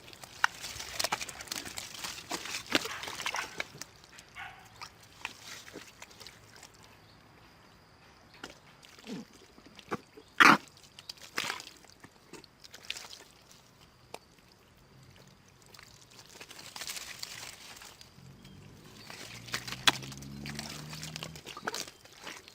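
Dogs splashing through shallow water as they go after fish, in irregular bursts of sloshing and small knocks, with one sharp knock about ten seconds in. A low, drawn-out dog vocalisation sounds near the end.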